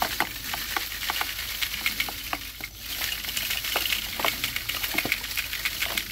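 Dried poppy seed heads shaken upside down over a plastic tub: the dry pods and stalks rattle while a dense crackling patter of seeds falls out into the tub.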